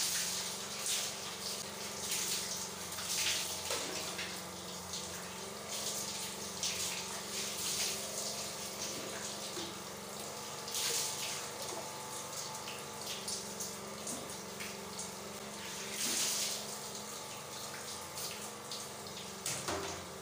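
Water pouring and splashing over a person washing in a small tiled bathroom, with several louder surges over a steady low hum.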